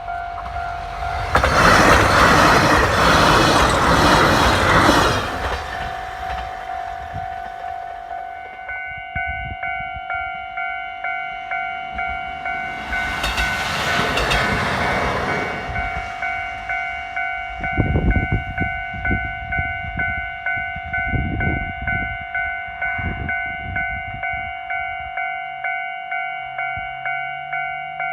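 Railway level-crossing warning bell ringing in steady, rapid pulses throughout as a diesel train passes over the crossing. There is a loud burst of train noise a second or two in and another near the middle, then a run of wheel thumps over the rail joints about two-thirds of the way through.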